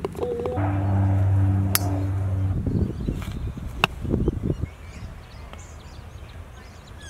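Golf club striking a ball: a sharp click as a putter taps the ball, then a second crisp click from a full iron swing about four seconds in. A steady low hum sounds for a couple of seconds before the first click.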